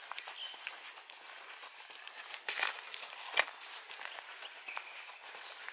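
Footsteps crunching and crackling on a dry, overgrown woodland track, with two louder sharp crackles past the middle, like twigs snapping underfoot. Faint bird chirps sound in the background.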